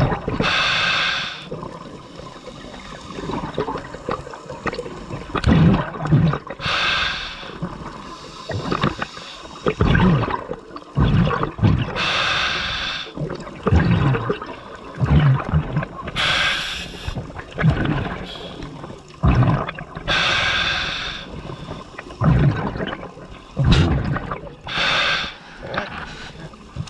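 A scuba diver breathing through a regulator underwater: a hissing inhalation about every four to five seconds, each followed by a burble of exhaled bubbles.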